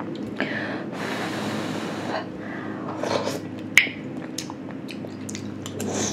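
A metal spoon clicking and scraping in a ceramic soup bowl as soup is scooped up, with a long breath about a second in. Near the end a spoonful of soup is sipped and eaten.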